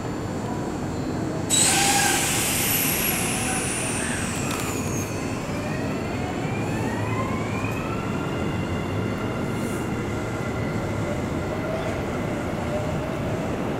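Electric train at a station platform: a sudden hiss about a second and a half in, then the motors' whine rising in pitch and levelling off as the train pulls away.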